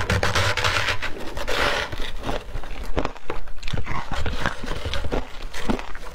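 A metal spoon scraping and digging into a tub of shaved ice dusted with matcha powder, the ice crunching. A dense continuous scrape for about the first two seconds gives way to many short, separate crunches and clicks.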